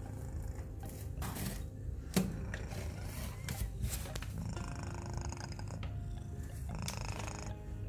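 Calico mother cat purring steadily while nursing her newborn kittens, with a short knock about two seconds in.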